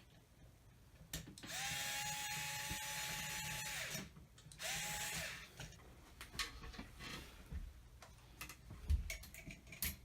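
Cordless drill/driver running in two bursts, a longer one of about two seconds and then a short one, each spinning up quickly and holding a steady whine, while driving screws during the ceiling fan install. Small knocks and handling noises follow.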